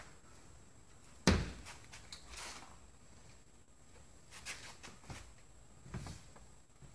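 Scattered knocks, clicks and light scrapes from hand work on a bus door's window and its rubber seal. One sharp knock about a second in is the loudest, followed by lighter taps and a brief scrape.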